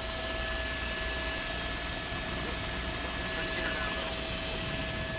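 Steady helicopter noise heard faintly: a low rumble under an even hiss, with two thin steady whines.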